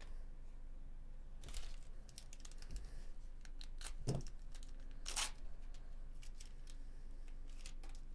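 Foil wrapper of a baseball card pack being torn open, crackling and crinkling in a run of sharp irregular clicks, with the loudest rip about five seconds in and a soft knock just before it.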